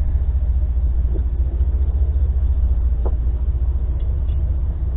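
Steady low rumble, with two faint short squeaks about a second in and about three seconds in.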